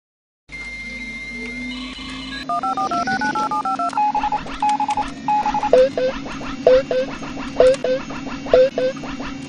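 Telephone-style electronic signal effects over a steady hum. A quick run of touch-tone dialing tones comes first, then three short beeps, then four pairs of short rising electronic chirps about a second apart.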